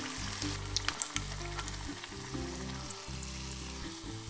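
Battered chicken pieces deep-frying in hot oil, sizzling steadily with scattered crackles and pops, the sharpest about a second in. Soft background music plays underneath.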